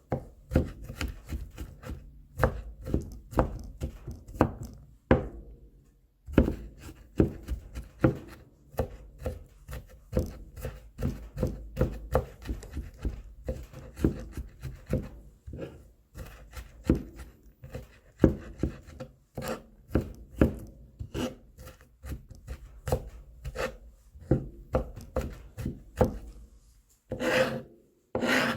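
Garlic being minced with a kitchen knife on a cutting board: a quick, steady run of blade strikes, with a short pause about five seconds in and a brief scraping sound near the end.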